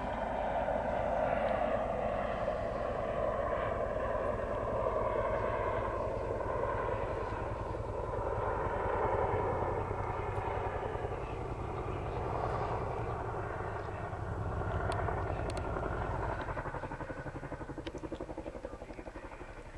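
Boeing Chinook tandem-rotor helicopter flying past, its twin rotors beating in a rapid, steady chop over engine rumble. The sound fades gradually over the last few seconds.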